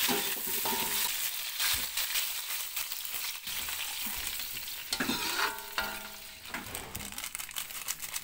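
Sliced green chilies sizzling as they are stir-fried in a wok, with the metal spatula scraping and clicking against the pan. The sizzle gets quieter in the second half as the wok fills with liquid.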